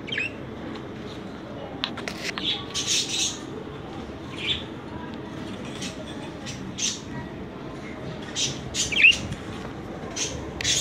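Budgerigars calling: a scattered series of short, sharp chirps and squawks, a few with quick upward twitters.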